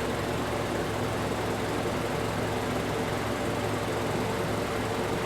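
Car's electric radiator cooling fan running steadily at high speed along with the idling engine, a constant whooshing hum. The AC controller has switched the fan to high speed because refrigerant line pressure has risen.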